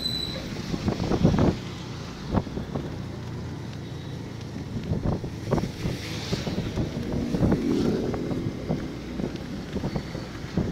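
Motorcycle taxi riding on a wet city road: the engine runs low under wind buffeting the microphone, with frequent irregular thumps of wind and a watery tyre hiss.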